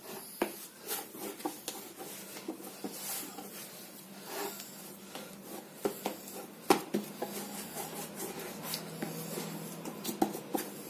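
Hand kneading a stiff rice-flour chakli dough on a wooden board: irregular soft rubbing and pressing, with a sharper knock on the board about two-thirds of the way through.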